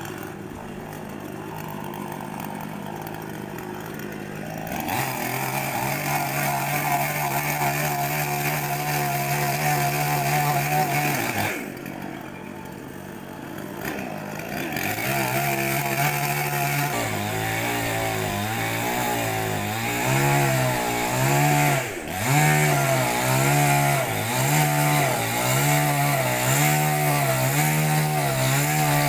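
Two-stroke chainsaw running: low at first, then held at a steady high speed for several seconds, easing off for a few seconds, then revving again with the engine note dipping and recovering about once a second, as it does when the chain is cutting wood.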